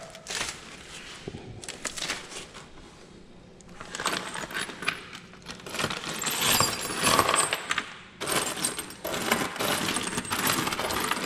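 Loose steel bolts, nuts and washers clinking and rattling against each other as hands rummage through a pile of hardware on a wooden bench, sparse at first and busier from about four seconds in.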